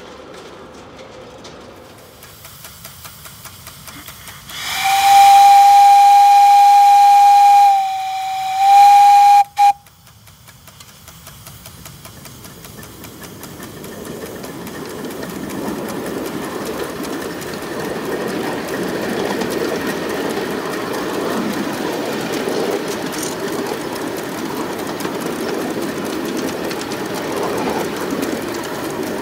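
Miniature live-steam locomotive's whistle blown in one long steady blast, dipping briefly in pitch and level before sounding again and cutting off sharply, about ten seconds in. Then the running noise of the miniature steam train on its track builds up over several seconds and holds steady.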